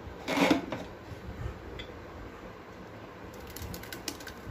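A brief clatter of a steel mixer-grinder jar being handled about half a second in, then light clicks and ticks near the end as ground soaked-wheat paste is tipped out of the jar into a steel pot. The mixer motor is not running.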